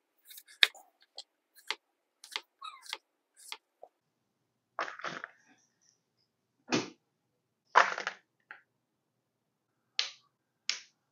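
Chef's knife cutting through peeled potatoes onto a plastic cutting board: a quick run of light knife taps, then a few louder knocks. Near the end, two sharp snaps as asparagus spears are bent until their woody ends break off.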